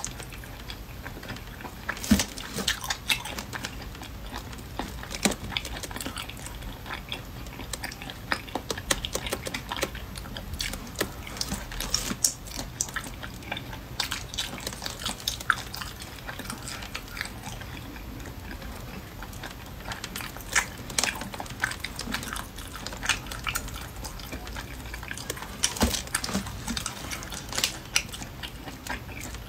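Close-miked eating: wet chewing and lip smacking, with saucy food torn apart by hand. Many short, sharp clicks and smacks run through it over a faint steady low hum.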